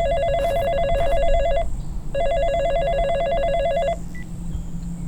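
A telephone ringing with a warbling electronic trill: two rings, each just under two seconds long, with a half-second gap between them.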